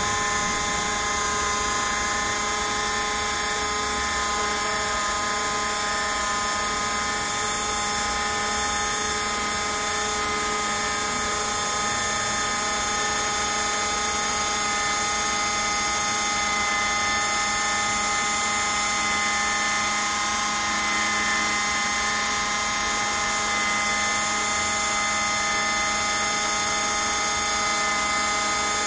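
Small CNC router's spindle motor running steadily as the bit carves into a white slab: a continuous high whine made of several steady tones over a cutting hiss, unchanging throughout.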